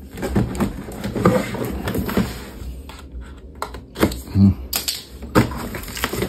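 Packaging of a boxed RC car being torn and opened by hand: irregular crackling, rustling and ripping, with a short low thump about four seconds in.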